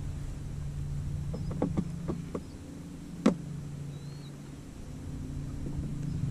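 Steady low hum of a small electric motor, most likely the boat's electric trolling motor, fading for a moment after the middle. A quick run of light clicks comes a little before halfway, then one sharp click about three seconds in, the loudest sound.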